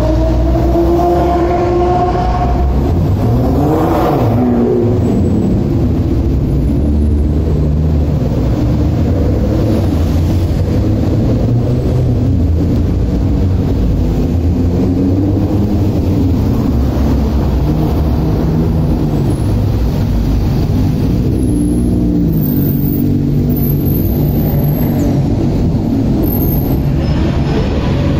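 A slow convoy of sports cars, Nissan GT-R R35s among them, driving past with engines running at low speed, their revs rising and falling several times.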